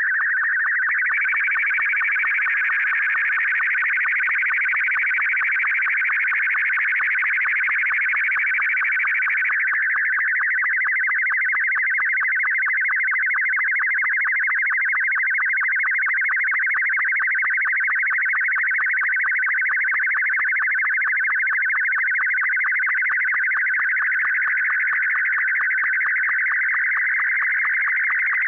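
Slow-scan television (SSTV) signal in Martin 2 mode: a continuous warbling audio tone, chopped by a fast, regular line-sync tick as each picture line is sent. Its pitch sits a little higher for the first ten seconds or so, then settles slightly lower.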